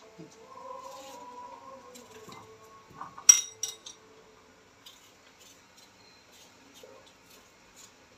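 Knife peeling a potato with faint scrapes and ticks. About three seconds in comes a sharp clink with a short ring, a cut potato piece dropped into a glass bowl of water, followed by a few smaller knocks.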